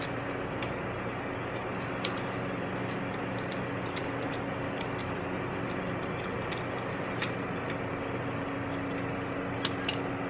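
Scattered light metallic clicks and clinks of a socket wrench working a car wheel's lug bolt loose, over a steady background hum. Two sharper metal clinks come near the end.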